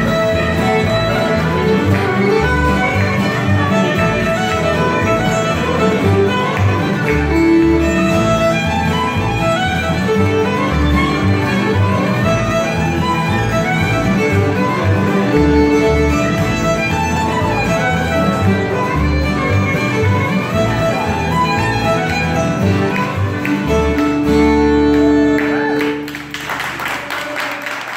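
Bluegrass band playing a fiddle tune: fiddle leading over strummed acoustic guitars and a plucked upright bass. The tune closes on a held final note about two seconds before the end, and the audience breaks into applause.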